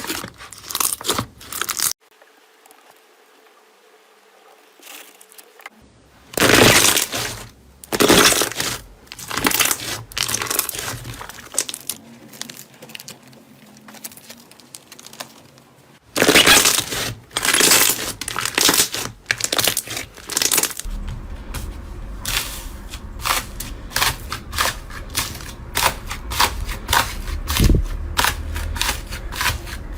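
Slime being squeezed and poked, making repeated short crackling, crunchy squishes.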